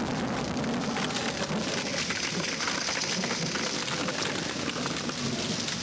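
Hail and rain pelting down, a dense, steady patter of many small impacts.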